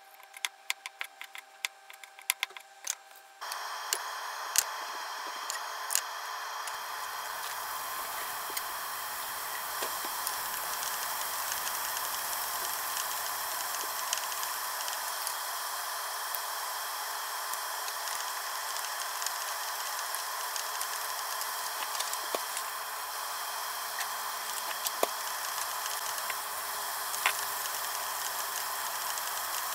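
A knife slicing mushrooms on a cutting board, a quick run of sharp clicks. About three seconds in it gives way to mushrooms sizzling in butter in a frying pan, a steady hiss with the odd tap of chopsticks against the pan.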